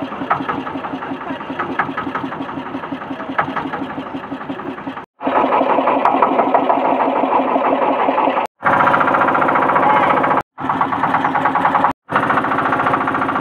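Engine of a wooden motorboat running steadily with a fast, even chugging. The sound drops out suddenly four times, for a fraction of a second each.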